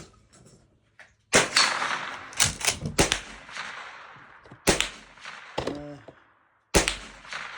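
Maverick 88 pump-action shotgun fired four times, one shot every 1.5 to 2 seconds, each report echoing and fading out. There are smaller mechanical clacks between shots as the pump is worked. The loads are a mix of birdshot and buckshot, cycled through to test feeding.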